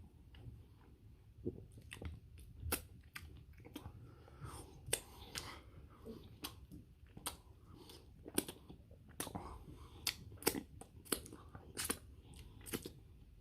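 A person chewing a chili dog with open, wet mouth smacks and the crunch of a toasted bun, in short irregular bursts.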